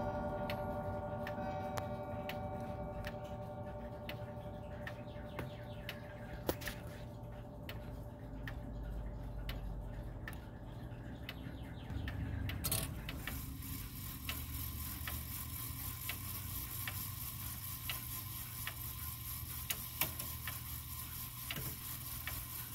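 Cable-driven movement of a Howard Miller Haverhill grandfather clock ticking, while its chime rods ring on after a chime and fade out over the first several seconds. About halfway through there is a brief bump.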